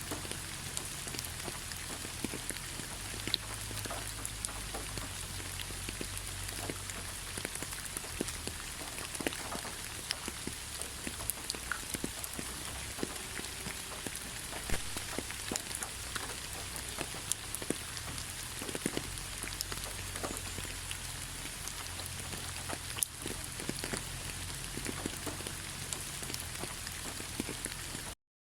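Steady rain falling, with many individual drops ticking sharply through the even hiss of the rain. The sound cuts out for a moment near the end.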